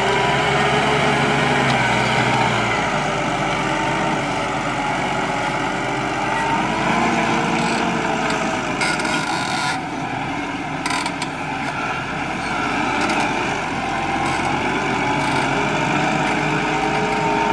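Farm-machinery sound effect of large diesel engines, forage harvester and tractor, running steadily under load, with a few short clicks about halfway through.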